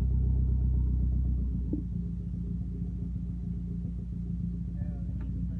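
Mazdaspeed 3's turbocharged 2.3-litre four-cylinder engine running steadily, its note changing and dropping a little in loudness about a second and a half in.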